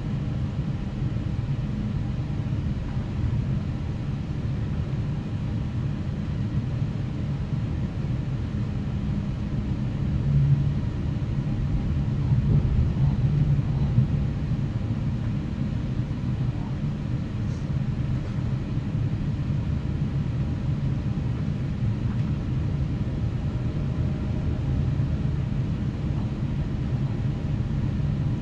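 Steady low rumble of a CFL electric regional train running along the line, heard from inside the passenger cabin, a little louder for a few seconds about ten seconds in.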